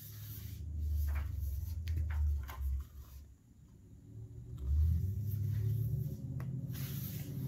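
Picture book being handled and its pages turned: a few soft paper clicks and rustles over a low rumble that drops away about three seconds in and comes back about a second and a half later.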